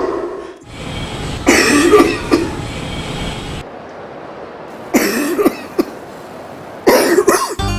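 Coughing played back by an anti-smoking billboard's speaker: three harsh bouts of coughing, the first about a second and a half in and two more near the end, with a low rumble under the first half.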